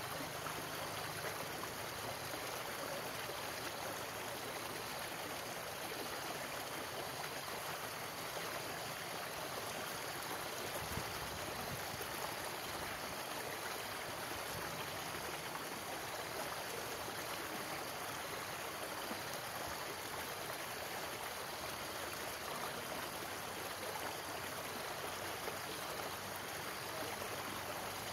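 Shallow stream steadily rushing and splashing over rocks below a concrete culvert.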